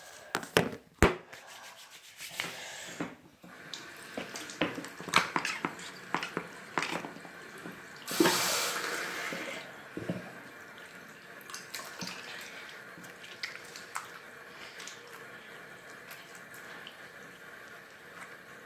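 Water running from a bathroom sink tap while hands are washed, with sharp knocks and handling clatter in the first few seconds. There is a louder rush about eight seconds in, then a steady hiss of running water.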